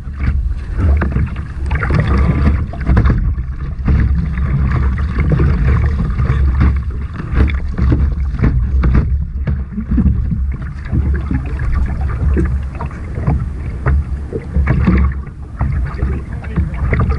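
Water splashing and slapping against a surf kayak's hull as it is paddled, with wind buffeting the microphone.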